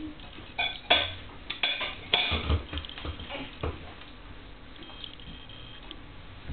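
A run of sharp clicks and clattering knocks in the first half, the loudest about a second in and about two seconds in, then a quieter stretch.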